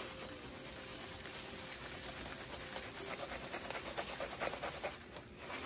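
Panko breadcrumbs pouring from a cardboard box into a bowl of raw ground beef: a soft, steady rustle and patter of falling crumbs, busiest in the second half.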